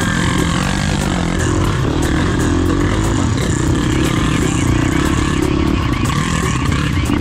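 Dirt bike engine running, its pitch rising and falling as the throttle is worked.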